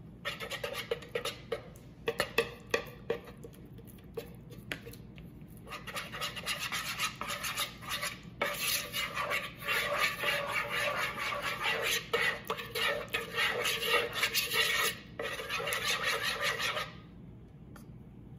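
Metal spoon stirring a cornstarch-and-water mix in a mixing bowl, scraping and clinking against the bowl's sides. A few sharp taps come first, then a long stretch of fast, steady scraping that stops a second or two before the end.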